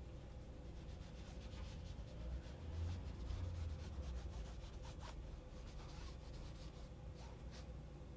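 Faint rubbing and scrubbing of a sponge across a painted surface, smudging the paint in short irregular strokes.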